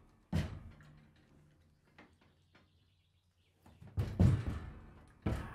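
A horse's hooves thudding on the ramp and floor of a horse trailer as it steps and shifts its weight: one thud just after the start, a faint knock around two seconds, then a cluster of heavier thuds about four seconds in and another near the end.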